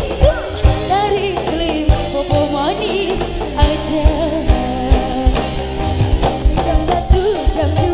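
A woman singing into a microphone with a live amplified band: electric guitars, keyboard and a drum kit keeping a steady beat.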